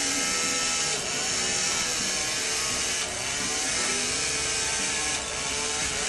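Electric-motor-driven transmission unit of a wooden pendulum clock, with wooden gears and clear acrylic drums holding steel balls, running continuously for testing instead of its normal one turn a minute. It makes a steady mechanical whir with slight dips about every two seconds.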